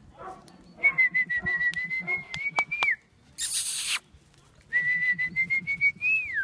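A person whistling two long, steady notes, the second ending with a quick dip and rise in pitch. A short burst of rustling noise falls between them.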